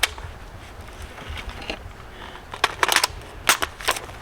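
Short, sharp metallic clicks and clacks of an AR-15-style 5.56 rifle being handled after a dead trigger, bunched together from about two and a half seconds in.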